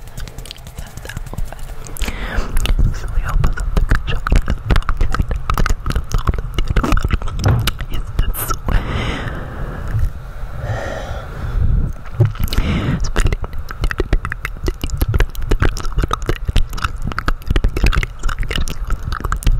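Close-miked mouth sounds and hand rubbing on a microphone's grille, with hands cupped around it. A dense run of wet clicks sits over a low handling rumble, getting louder about two seconds in.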